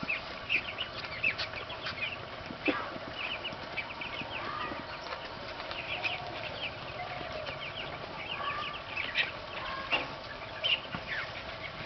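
Many broiler chicks peeping, a dense run of short high cheeps, with a few short sharp clicks. The chicks are from a flock sick with infectious bronchitis.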